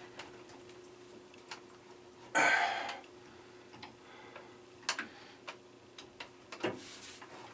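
Scattered faint clicks and small knocks from a plastic shower handle and the old Moen Moentrol valve cartridge being rocked back and forth to work the stuck core out of the valve body, with one louder half-second rasp about two and a half seconds in.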